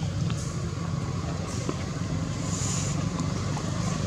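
Steady low drone of a motor vehicle engine running.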